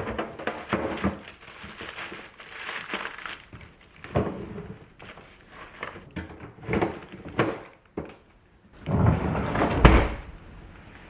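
Household objects being handled: a series of knocks and thuds as things are set down and moved, much like a drawer or cupboard door. Near the end comes a louder stretch of rustling and scraping that finishes in a heavy thud.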